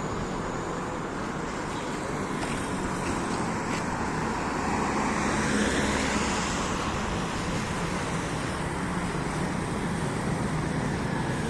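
Road traffic passing: a steady noise of engines and tyres, swelling a little as a vehicle goes by about halfway through.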